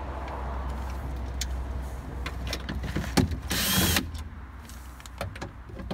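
Cordless drill-driver with a T30 Torx bit running to back out a window-motor screw from a car door, a steady whirr for about four seconds with a louder burst at the end, then a few light clicks.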